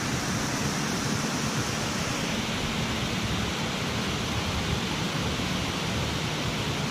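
Steady rush of water spilling through a dam's gates into the river, growing brighter and fuller about two seconds in.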